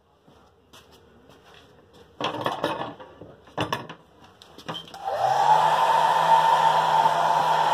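Handheld hair dryer switched on about five seconds in: its motor spins up with a quickly rising whine, then runs steadily with a high hum over a rush of air. Before it, a couple of brief handling noises.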